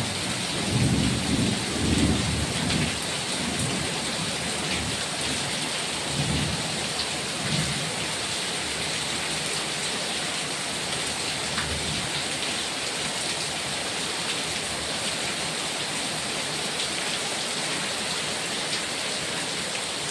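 Heavy rain falling steadily, with low rumbles during the first three seconds and again briefly around six and seven seconds in.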